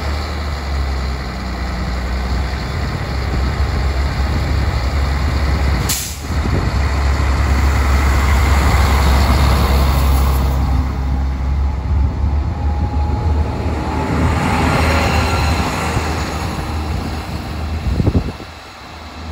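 DB class 641 single-car diesel railcar running past a station platform: a deep, steady engine rumble with wheel and rail noise, and a sharp click about six seconds in. The sound drops away suddenly near the end as the railcar moves off down the line.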